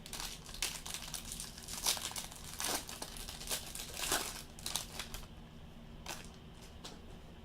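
Crinkling and rustling of trading-card packaging being handled, a quick run of rustles that thins out after about five seconds.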